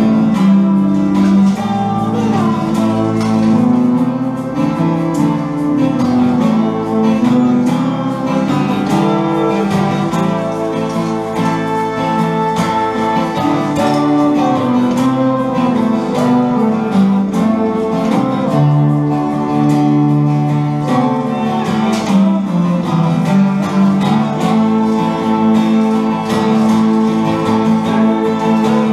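A small band playing live music together, with the digital piano among the instruments and chords changing every second or so, without a break.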